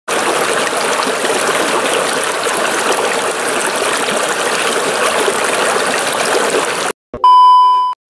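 Shallow stream rushing and splashing over rocks, a steady water noise that cuts off about seven seconds in. A short, loud electronic beep follows near the end.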